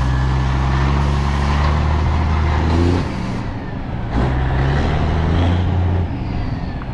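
Diesel engine of a Ford cabover semi tractor pulling under load, its pitch steady and then dropping about three seconds in as the driver shifts gears, before climbing again. There is a short burst of noise about four seconds in.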